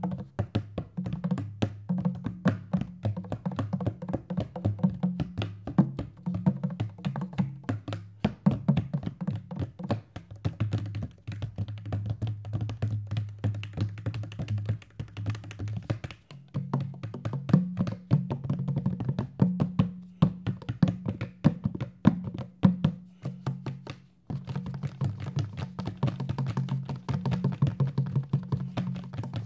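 Hand drums played in fast, dense strokes over low ringing drum tones that shift between a few pitches, with a couple of brief breaks.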